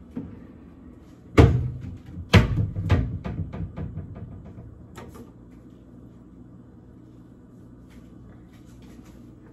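Kitchen cupboard doors knocking shut: two loud bangs about a second apart, followed by a short run of smaller rattling clicks and a few more clicks a couple of seconds later, over a steady low hum.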